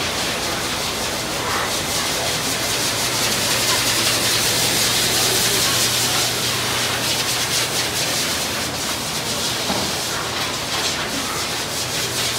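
Large ventilation fans running in a cattle barn: a steady rushing hiss of moving air over a low motor hum.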